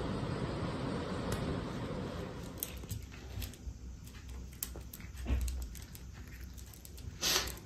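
A steady low rumble, then, about three seconds in, a cat crunching dry kibble from a stainless steel bowl: scattered small crunches and clicks, with a brief louder rasp near the end.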